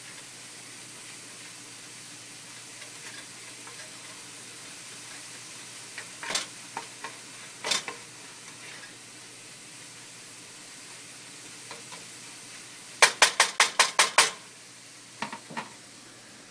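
Ground beef with peppers and onions sizzling in a nonstick frying pan as a spatula stirs it, with a few sharp clicks of the spatula against the pan. Near the end comes a quick run of about eight sharp knocks, the loudest sounds.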